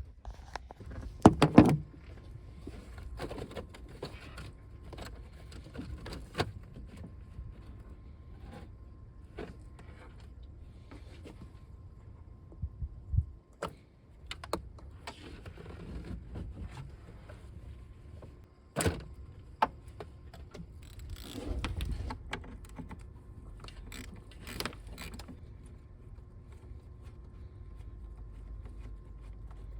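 Clicks, knocks and rattles of hand tools and loose parts during work in a truck's engine bay, taking off the air filter and intake. The sharpest knocks come about a second and a half in and again near nineteen seconds.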